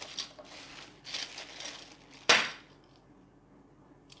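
Small plastic bags of ABS battery holders crinkling as they are handled, then a single sharp plastic clack about two seconds in, the loudest sound, as something hard is set or dropped down.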